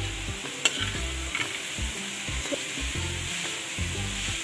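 Chicken-mince and shredded vegetable filling stir-frying on high heat in a stainless steel pan: steady sizzling, with a metal spoon scraping and clicking against the pan a couple of times.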